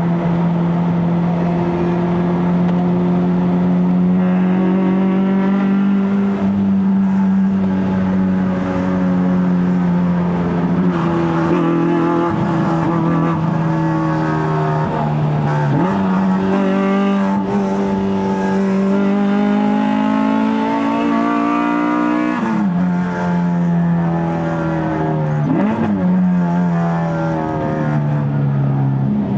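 Honda K24A four-cylinder engine in a Civic FD2, with a straight-pipe stainless exhaust, pulling through the gears of a six-speed manual. The engine note climbs slowly and drops sharply several times as gears change.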